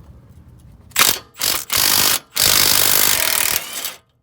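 Impact wrench run on the 17 mm top nut of a front sway bar link: three short bursts about a second in, then a longer run of about a second and a half that cuts off suddenly.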